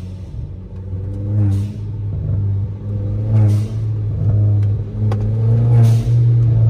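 Volkswagen Polo GT's 1.2 TSI turbocharged engine heard from inside the cabin, pulling and easing off repeatedly. Each throttle lift-off brings a short 'pis' hiss from the aftermarket Forge blow-off valve venting boost, three times.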